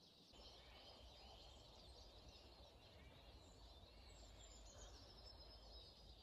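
Faint outdoor ambience with a low rumble and high, thin bird chirps in the background. One drawn-out call falls slowly in pitch near the end.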